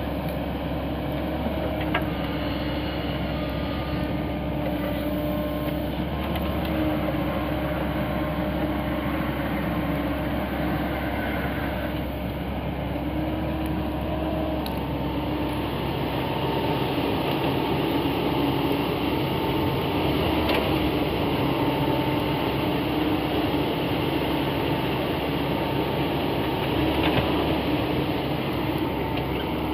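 Caterpillar 307D compact excavator's diesel engine running under load as the boom, arm and bucket are worked, with a steady whine whose pitch shifts as the controls move. The machine gets a little louder about halfway through.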